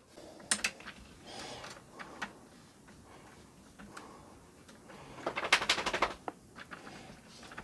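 Plastic clicks and rattles as the retaining tabs and plate of a Sony CFD-510 cassette deck mechanism are pressed and worked by hand, with a quick run of sharp clicks about five and a half seconds in.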